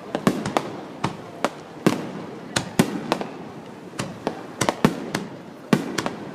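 A fireworks display: a quick, irregular string of sharp bangs, about two or three a second, from bursting shells over a steady background haze.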